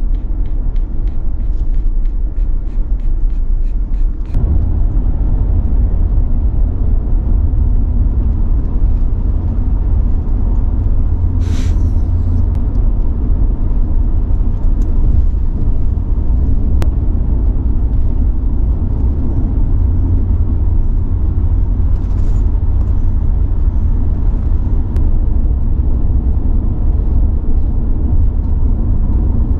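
Steady low rumble of a car driving, heard from inside the cabin; it gets louder about four seconds in.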